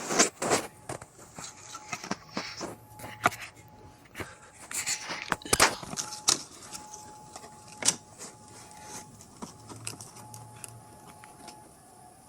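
Handling noise of someone moving about: a string of clicks, knocks and rustling scrapes, busiest in the first eight seconds or so, then quieter. Under it runs a faint steady tone, a distant tornado warning siren.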